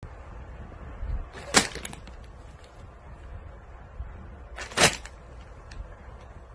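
Plastic snack-chip bags crinkling as they are pressed, with two short, sharp crackles about three seconds apart and a few faint rustles between them.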